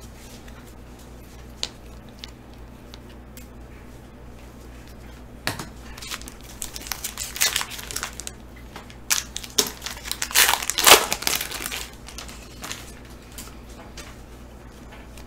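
Foil trading-card pack being torn open, its wrapper crinkling loudly in two bursts about six and ten seconds in. Light clicks of cards being handled come before.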